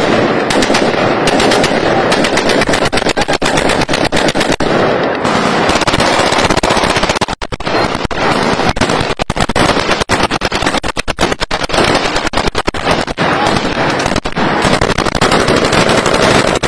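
Heavy automatic gunfire in rapid, overlapping bursts, celebratory shooting that starts abruptly and keeps going almost without pause.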